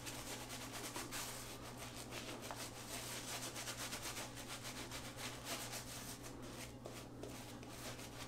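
Shaving brush swirling soap lather over a three-day stubble, a soft scratchy rubbing in quick repeated strokes.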